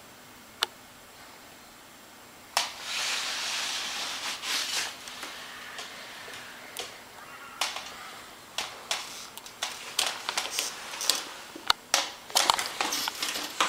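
Close rustling for about two seconds, starting a few seconds in, then irregular sharp clicks and taps that come thicker toward the end.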